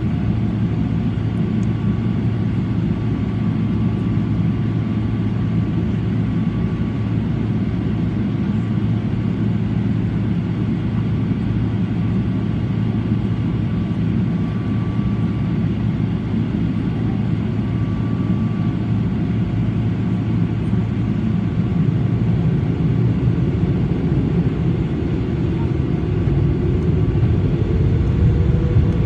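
Cabin noise inside a Boeing 777-300ER: a steady low rumble from its GE90 engines and the airframe. It grows louder over the last few seconds as a rising engine whine comes in.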